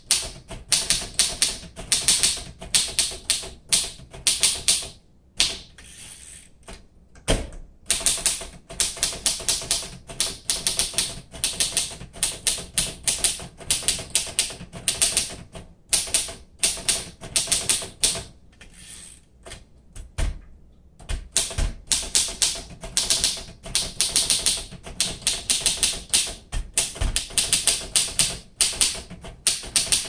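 1942 Royal Companion manual typewriter being typed on: quick runs of key and typebar strikes at several a second, with short pauses and a few heavier knocks. The keys and typebars strike cleanly, not stiff or sticking.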